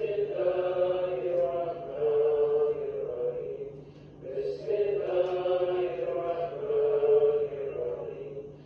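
Sufi dhikr, the names of God chanted by voices in unison, as two long melodic phrases with a short pause about four seconds in. A steady low hum runs underneath.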